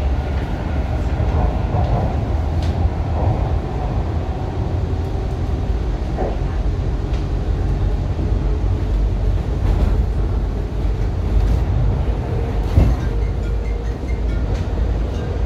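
Toronto subway train accelerating away from a station, heard from inside the car: a steady low rumble of wheels on rail with a few sharp clicks. A faint steady hum comes in near the end.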